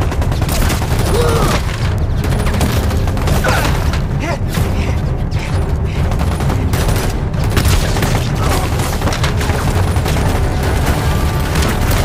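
Battle sound effects: rapid, continuous gunfire with booming explosions over a heavy low rumble.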